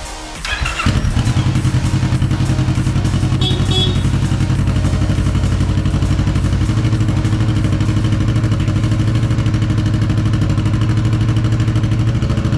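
Kawasaki Ninja 650 parallel-twin engine starting about half a second in and settling into a steady, evenly pulsing idle: the bike starts on the electric starter with its new starter relay.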